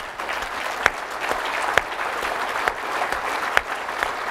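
Audience applauding steadily, with a few louder single claps standing out.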